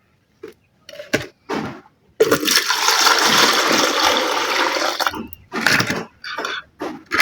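Water being poured and splashed while the leaf water is filtered: a few short splashes, then a steady pour starting about two seconds in and lasting about three seconds, then more short splashes.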